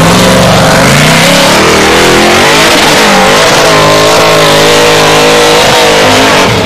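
Formula Offroad buggy's engine running loud at full throttle up a steep sand wall, revs climbing over the first couple of seconds, then wavering up and down as the wheels spin and bite.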